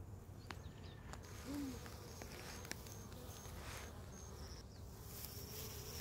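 Honeybees flying around a hive: one bee buzzes past the microphone about a second and a half in, and a steady hum of bees at the hive entrance builds near the end.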